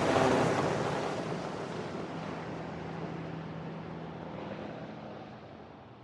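Helicopter flying away after its pass, its rotor and engine noise fading steadily as it recedes, the higher sounds dying out first.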